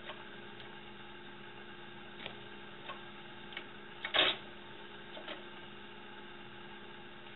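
A cat pawing at a CD player: a few faint clicks, then a louder brief knock about four seconds in and a light double click after it, over a steady electrical hum.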